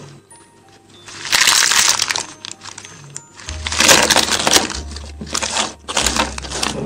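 Plastic wrappers of individually wrapped Kaccha Mango Bite candies crinkling and rustling as a handful is spilled onto a table and gathered by hand, in four crackly bursts. Background music runs underneath.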